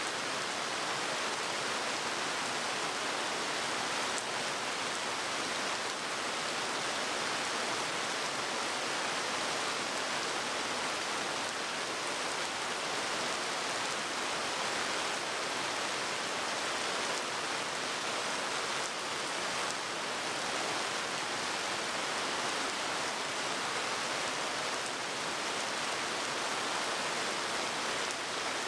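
Heavy rain pouring onto wet pavement, a steady even hiss with no let-up.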